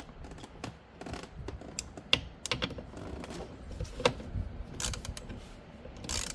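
Light, irregular clicks and taps of metal hardware being fitted by hand as the steering wheel is mounted on the C5 Corvette's steering column, with a couple of sharper knocks around the second and fourth seconds.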